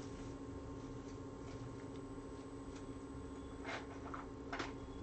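Quiet room tone with a steady electrical hum, broken by a few faint short clicks near the end.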